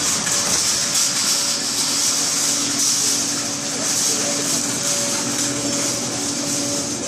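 Busy supermarket background noise: a steady hiss with a faint low hum that comes and goes, and rustling from the handheld camera being carried through the aisles.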